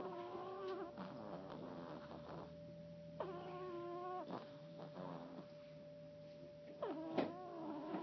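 French bulldog snoring in its sleep: three pitched snores about three seconds apart, one at the start, one about three seconds in, and one near the end.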